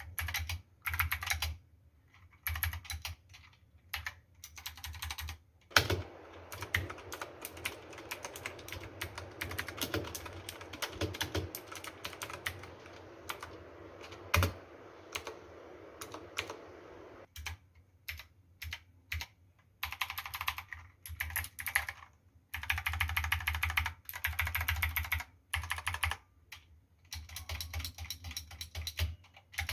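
Typing on a Cosmic Byte CB-GK-23 Artemis mechanical keyboard fitted with a foam mod and PBT keycaps: bursts of rapid keystrokes separated by short pauses.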